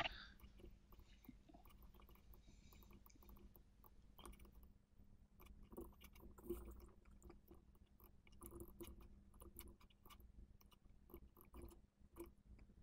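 Near silence: faint room tone with a faint steady low hum and scattered faint clicks.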